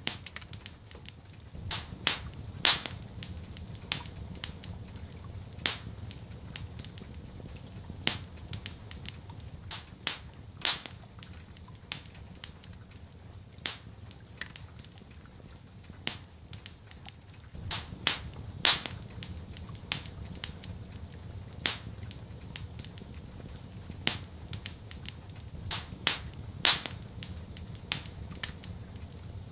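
Wood fire crackling in a fireplace: irregular sharp pops and snaps, a few of them louder, over a low steady rumble.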